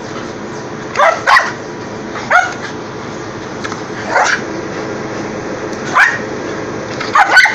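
Dogs barking excitedly while playing at a swung broom: about six sharp barks, some in quick pairs, each dropping in pitch.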